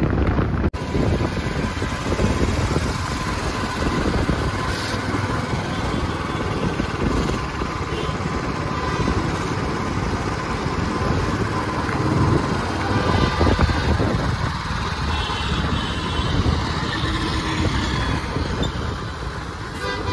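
Motorbike ride through city traffic at night: a steady, fluctuating mix of the bike running, wind on the microphone and other vehicles on the road.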